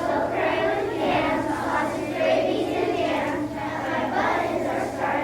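A group of children's voices together in unison.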